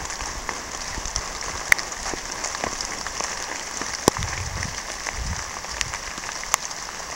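Steady, heavy rain hissing, with a few sharp taps of drops striking close by.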